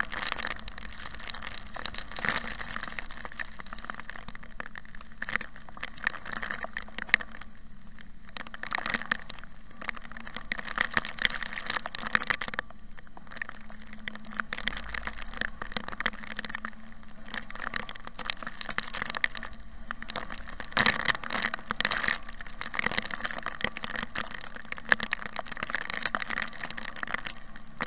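Rain striking the windshield and body of a moving car, heard from inside the cabin: a dense crackle of drop impacts over road noise. It thins out briefly about 8 and 13 seconds in and comes back heavier, with a faint steady hum underneath.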